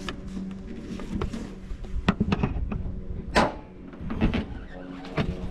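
Toyota Tacoma pickup hood being unlatched and lifted: a series of metal clunks and rattles, the loudest about three and a half seconds in.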